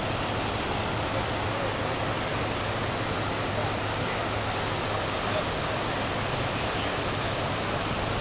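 Floodwater rushing steadily across a submerged road and into the swollen river, an even noise without breaks.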